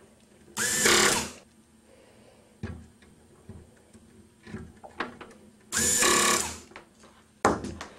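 Power screwdriver driving screws in two short runs, about half a second in and again about six seconds in, each winding up quickly. Small clicks of handling come in between.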